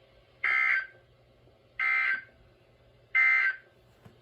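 Emergency Alert System end-of-message code: three short, identical bursts of buzzing digital data tones, about 1.4 seconds apart, marking the end of the weather alert.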